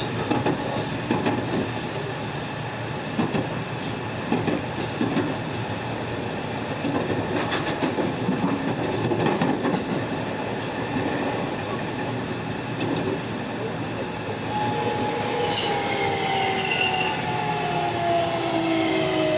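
JR West 207 series electric commuter car with Toshiba GTO inverter drive running on the rails, with wheel noise and clicks over rail joints. About 14 seconds in, the traction inverter's whine sets in as several tones falling steadily in pitch while the train brakes and slows. This car's inverter tone is noted as unusually odd compared with others of its type.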